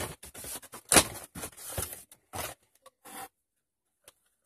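Plastic packaging and a cardboard box being handled, rustling and scraping in uneven bursts, with one sharp knock about a second in; it stops after about three seconds.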